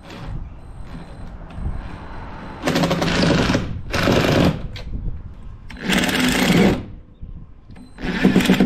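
Orange Black+Decker cordless drill running in four short bursts of under a second each, driving screws through a folding steel bracket into a wooden bench board.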